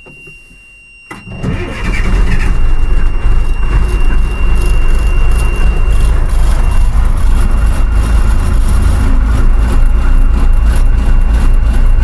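Diesel engine of an M931 5-ton military truck cold-starting after sitting for about four months: it catches about a second in and then runs loud and steady with about a quarter throttle held.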